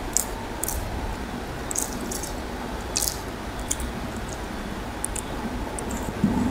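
A hand kneading rice and curry on a plate and squeezing a lemon wedge: soft wet squishes and small sharp clicks, over a steady low background rumble. A soft knock comes near the end.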